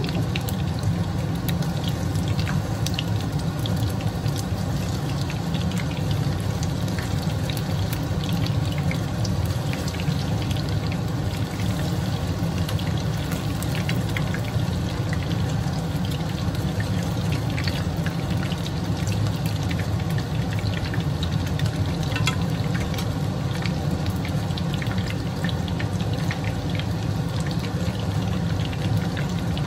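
Karaage pieces deep-frying in hot oil during the first fry of a double fry: a steady sizzle with many small crackles and pops, over a steady low hum.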